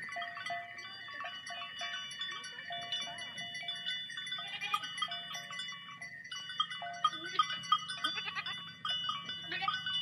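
A large herd of sheep moving through water, many animals bleating over one another without pause.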